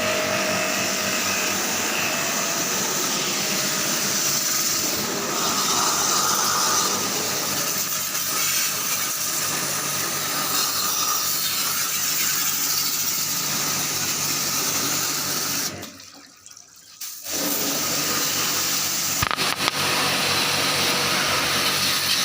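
Water spraying hard and steadily, as from a pressure-washer jet used to clean an air conditioner. It cuts off for about a second and a half about three-quarters of the way through, then starts again.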